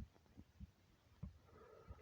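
Near silence in a lull of an empty stomach's rumbling, with a few faint, brief low gurgles.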